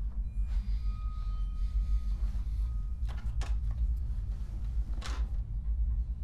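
Two sharp clicks about three seconds in and a short scrape about five seconds in, from something being handled, over a steady low hum.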